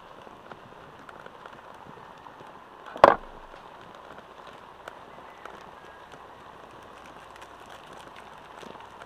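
Pork and onions sizzling in a cast-iron wok over a wood fire, with small crackles throughout. One sharp, loud pop or knock about three seconds in.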